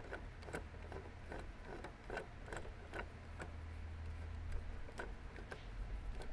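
Flat-blade screwdriver turning out a rusty butt plate screw from a Winchester Model 42 shotgun stock: a run of light clicks, about two a second.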